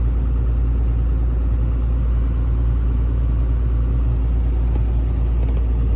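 Caterpillar 320CL excavator's diesel engine running at a steady idle, heard from inside the cab as an even low rumble.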